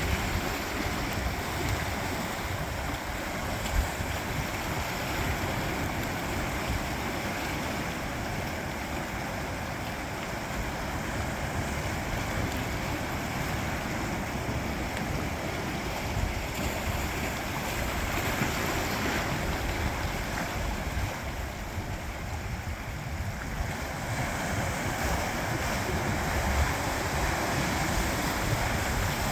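Sea waves washing against coastal rocks in a continuous surging roar, with wind buffeting the microphone.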